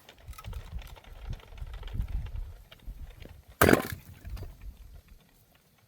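A pine firewood log being split by hand: low shuffling and thuds, then one loud, sharp crack about three and a half seconds in as the wood splits.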